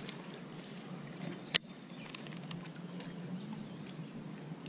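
Quiet outdoor background with one sharp click about a second and a half in, the loudest thing here. A brief high bird chirp comes about three seconds in.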